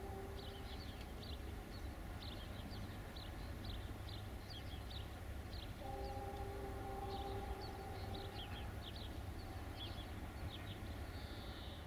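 Birds chirping and twittering throughout, while a distant train horn sounds a steady chord, briefly at the start and again for about three seconds in the middle, over a low steady rumble.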